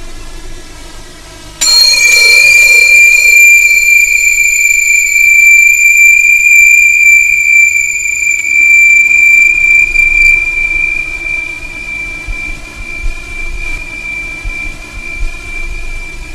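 A sound-effect ringing tone, high-pitched and steady, that starts suddenly about a second and a half in. Its higher overtones die away about ten seconds in, and the main tone carries on, slowly fading.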